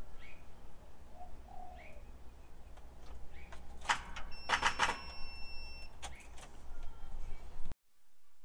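Faint short bird chirps over a low steady hum, with a burst of clicking and rattling about four to five seconds in, joined briefly by a steady high beep tone. The sound cuts off abruptly near the end.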